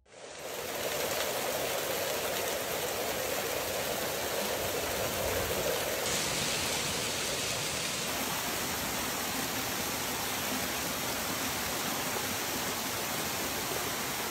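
Flash-flood water rushing through the canyon: a steady wash of water noise that fades in at the start. About six seconds in the sound shifts, losing some of its lower body and turning brighter.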